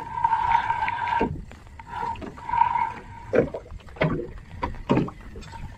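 Fishing reel winding in line with a steady whir that stops about a second in and briefly comes back, followed by a few scattered knocks and taps.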